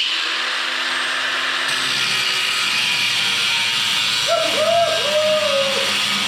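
Angle grinder with a thin cut-off wheel cutting through metal pipe. It makes a loud, steady hissing whine that starts abruptly and holds without a break.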